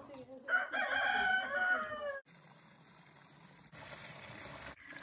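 A rooster crowing once, a long call that falls in pitch at the end. Near the end, water runs from a tank tap into a plastic jerrycan.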